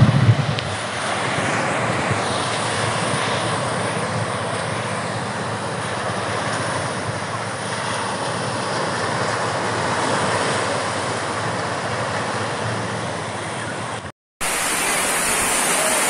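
Strong wind blowing across the microphone over surf breaking on a sand beach: a steady rushing noise, with a low buffeting rumble at the start. About fourteen seconds in it cuts off, and a hissing rush of rain falling on a corrugated metal roof takes over.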